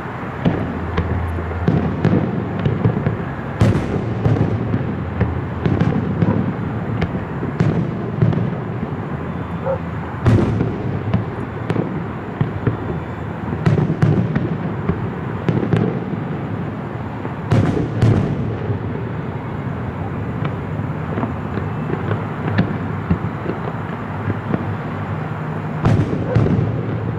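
Distant aerial fireworks display: a continuous rumble and crackle of bursting shells, with sharper booms every few seconds and several louder blasts.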